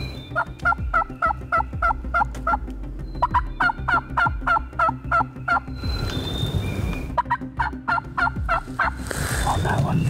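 Wild turkey calling in three runs of quick, evenly spaced notes, the last run shorter.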